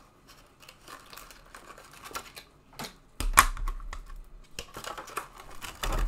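Cardboard packaging of a trading-card starter deck being handled and its contents worked out: irregular clicks, scrapes and crinkles, louder about three seconds in and again near the end.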